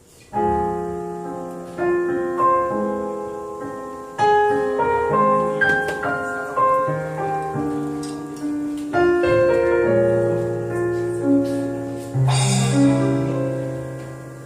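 Solo piano playing the song's introduction: broken chords struck every second or two, each left ringing and fading before the next.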